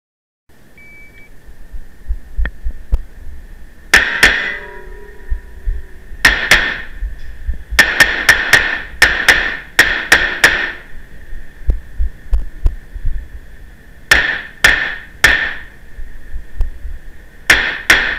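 A 9mm Beretta CX4 Storm carbine firing in quick pairs: a first pair about four seconds in, a run of pairs between about six and ten seconds, then more pairs near the end, each shot echoing off concrete walls. A short beep just under a second in, typical of a shot timer's start signal.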